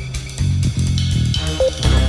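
Intro music with guitar, bass and a drum kit playing a steady beat.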